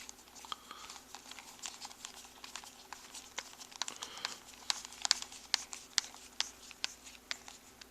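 Scattered light clicks, taps and rattles of small screws and plastic parts being handled, over a faint steady hum.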